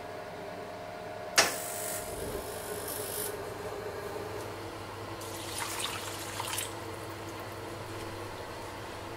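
Rinnai gas oven starting to preheat: a sharp click about a second and a half in, then a rush of noise over a steady low hum. A second, softer crackling rush comes a few seconds later.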